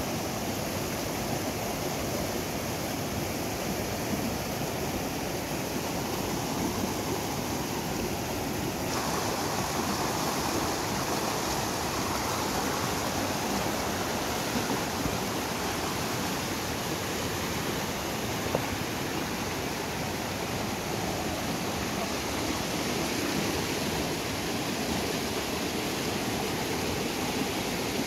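Shallow, boulder-strewn river rushing over rapids, a steady wash of water noise. About nine seconds in it grows brighter and a little fuller.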